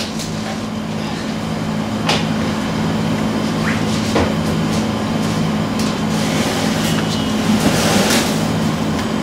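Steady mechanical hum and rumble with a low drone, broken by a few faint clicks and short squeaks.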